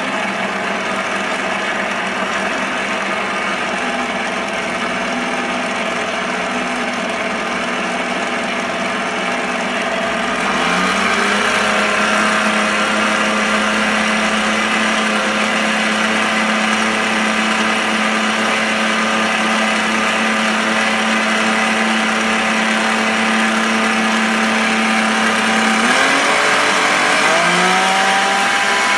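Electric stand mixer running, its beater churning cookie dough in a stainless steel bowl with a steady motor whine. The pitch rises about ten seconds in and again near the end as the motor speeds up.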